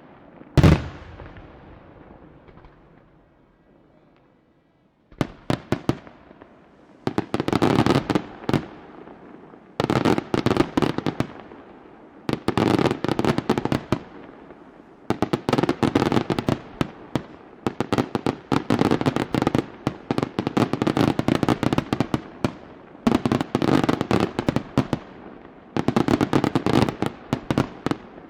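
Display fireworks: one loud bang with a rolling echo near the start, a short lull, then from about five seconds in repeated volleys of rapid, crackling bangs, each volley a second or three long with brief gaps between.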